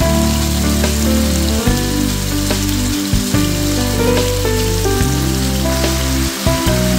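Marinated pork sizzling as it fries in a pan on medium heat: an even hiss. Background music with a bass line plays over it.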